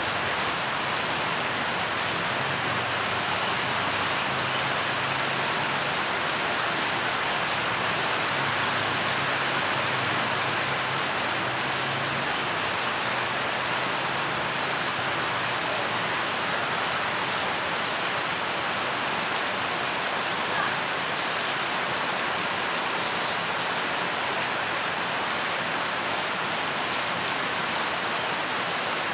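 Heavy rain falling onto standing floodwater, a steady dense hiss of drops splashing on the water surface.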